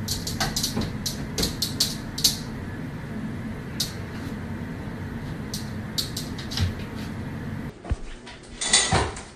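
A cat's paws and claws tapping and scratching against a bathroom mirror, a run of quick sharp clicks, most of them in the first two seconds or so, over a steady background hum.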